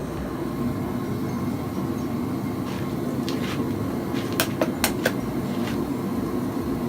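Forge running with a steady rushing noise while a Damascus steel billet heats inside it, with a few sharp clicks about two-thirds of the way in.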